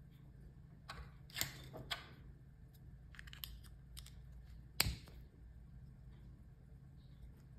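Small clicks and taps of a hard plastic wireless microphone receiver and USB-C adapter being handled and fitted together, with one sharper click about five seconds in, over a low steady hum.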